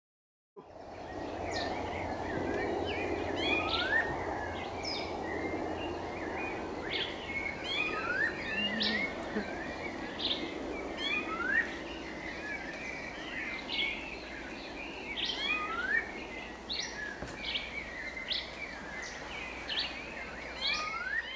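Several birds calling together: sharp chirps and a short rising whistle repeated every couple of seconds, over a steady background hiss and low hum.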